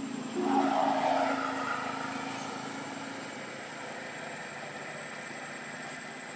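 An engine-driven vehicle going by, loudest about a second in and then slowly fading.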